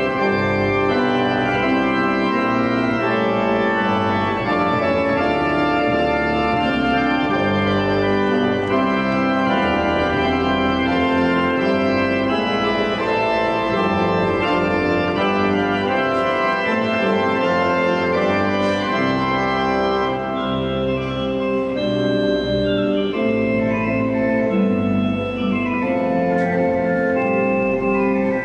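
Church pipe organ playing sustained chords, the notes changing every second or so.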